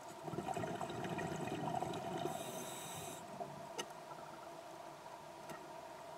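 Underwater scuba breathing through a regulator: a burst of low bubbling as the diver exhales, followed by a short high hiss of inhalation. Under it runs a steady faint hum, and a couple of light clicks come later.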